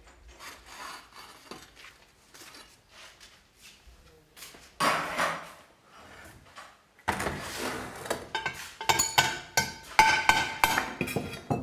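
Fired porcelain ware being handled off kiln shelves: faint clicks at first, a louder scrape about five seconds in, then a run of sharp ceramic clinks that ring on briefly, as pieces knock against each other and the shelves.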